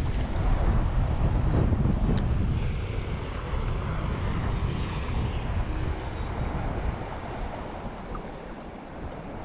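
Wind buffeting the microphone over the wash of small sea waves, a steady rushing noise that eases off toward the end.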